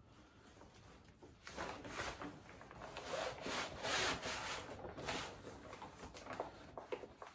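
A camping cot's side pole being pushed through the fabric sleeve of the cot bed, with the fabric scraping and rustling against the pole in quick, irregular strokes. It starts faintly and grows louder from about a second in.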